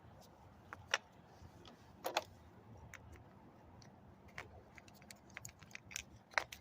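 Scattered sharp clicks and light taps of small parts being handled while a carburetor is fitted onto a string trimmer: about five louder clicks spread out, with fainter ticks between.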